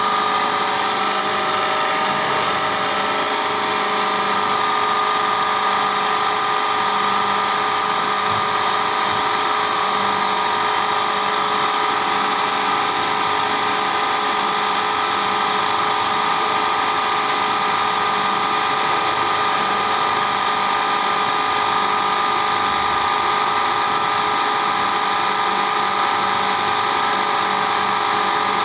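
Milling machine running with a small end mill cutting a lengthwise spline groove into a metal shaft: a steady high-pitched whine of the spindle and cutter, unchanging throughout.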